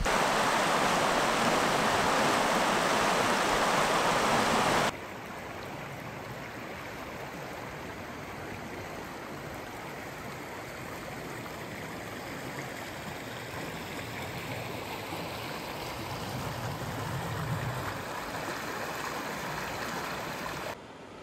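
River water rushing steadily over riffles and rocks. It is louder for the first five seconds, then drops suddenly to a quieter, even rush.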